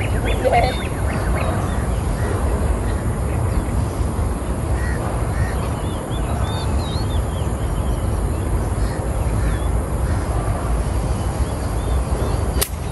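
Steady low outdoor rumble with birds calling now and then; near the end, a single sharp click of a 9 iron striking a golf ball.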